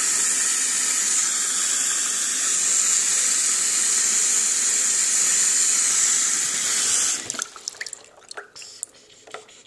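Water pouring steadily from a tap into a basin, filling it; the flow stops suddenly about seven seconds in, leaving scattered drips and small splashes.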